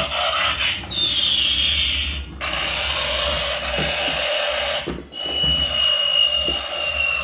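High-pitched electronic tones from a toy vehicle's sound effects. About a second in, one tone slides down in pitch. From about five seconds in, a long steady tone slowly falls.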